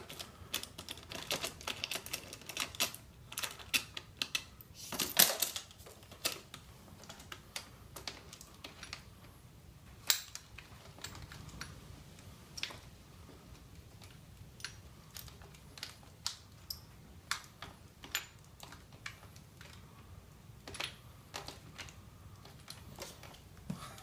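Irregular light metal clicks and clinks of a hand wrench working a footpeg bracket bolt on a dirt bike, with a few louder knocks about five and ten seconds in.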